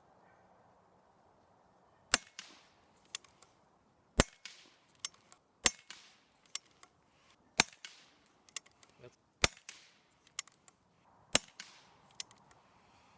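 Suppressed .22 LR single-shot rifle (Chiappa Little Badger with a Gemtech GM22 suppressor) firing subsonic rounds: six sharp, air-gun-like cracks about two seconds apart, each followed by fainter cracks and clicks.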